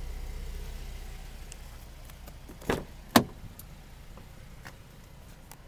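A 2012 Chevrolet Traverse's side door being handled: two sharp knocks about half a second apart, the second and louder being the door clunking shut.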